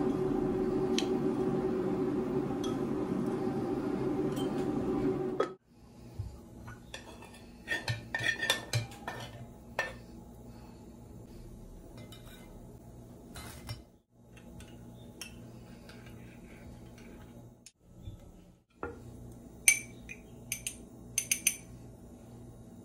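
Breakfast dishes being handled: a spoon clinking in a ceramic mug, and a cup, saucer and plate set down on the counter with scattered light clatter. A cluster of sharper glassy clinks comes near the end. For the first five seconds a louder steady hum lies under it and cuts off suddenly.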